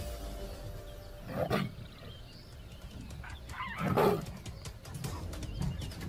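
Two short, loud wild-animal calls, one about a second and a half in and a louder one at about four seconds, over a quieter natural background.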